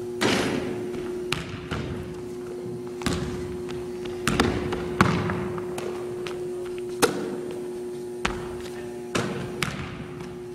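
Basketball thuds and bounces on a wooden gym floor during a shooting drill: a string of irregular, echoing impacts, about one every second or so, over a steady hum.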